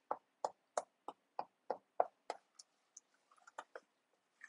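Wooden spoon knocking against a pot while stirring a cooking play-dough mixture: light, even knocks about three a second, growing fainter and sparser after about two and a half seconds.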